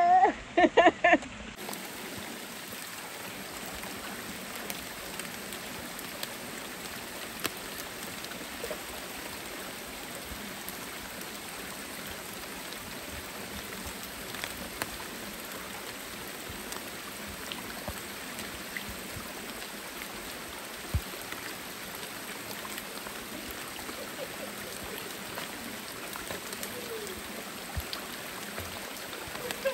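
Shallow muddy river running over rocks, a steady rush of water with a few faint scattered ticks and drips.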